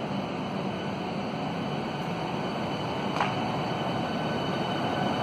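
Southeastern Class 395 Javelin electric multiple unit moving slowly past along the platform: steady running noise with a faint high whine. A single sharp click sounds about three seconds in.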